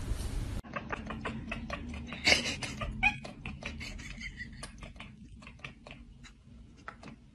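A cat chattering, with quick irregular clicks and a few short high chirps that are loudest in the first seconds and then fade, after a brief hiss at the very start.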